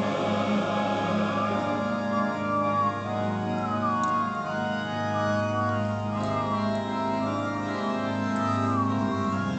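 Electronic keyboard set to an organ sound, playing slow held chords.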